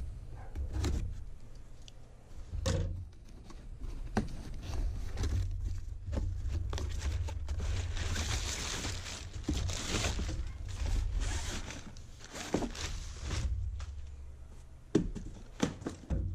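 Cardboard shipping box being cut open with scissors and torn open by hand, then the boxed fly rod combo slid out: scraping and rustling cardboard with scattered knocks, over a steady low rumble.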